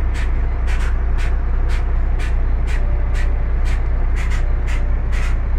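Heavy truck's diesel engine running steadily at idle, with crunching footsteps on gravel about twice a second.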